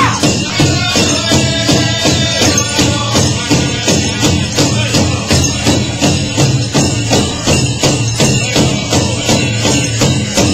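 Powwow drum music: a big drum beaten in a steady beat of about two and a half strokes a second, with jingling over it.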